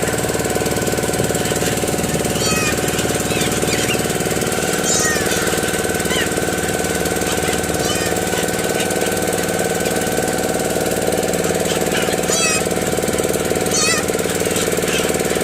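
An engine running steadily with a knocking beat, with many short, wavering high bird calls over it, a few calls every couple of seconds.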